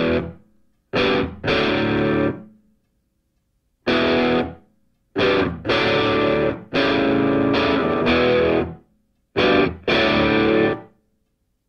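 Outro music: distorted electric guitar chords in short stop-start phrases, broken by silent gaps.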